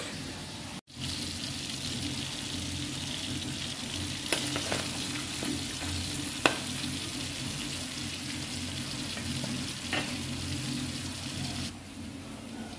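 Food sizzling as it fries in a pan, a steady hiss with a few sharp clicks of a utensil against the pan. The hiss drops away near the end.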